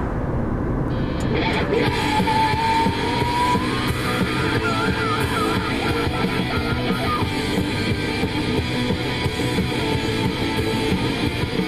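Rock music with electric guitar comes in about a second in, with a lead guitar line, over the low rumble of a car on the road.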